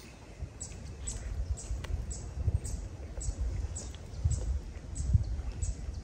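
A high, thin chirping call repeated evenly about twice a second, from a small unseen animal, over low wind rumble on the microphone.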